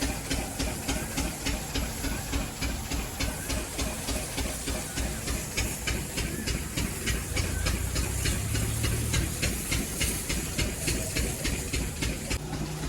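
High-pressure washer jet spraying water onto a tractor: a steady hiss that pulses in a quick, even rhythm.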